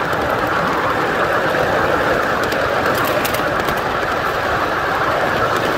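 5-inch gauge Ajax live steam locomotive running along the track, a steady rushing run of engine and wheel-on-rail noise, with a few light clicks about halfway through.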